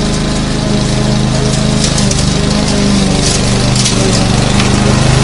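Lawn mower's small engine running steadily at mowing speed, with a few short high crackles over the top.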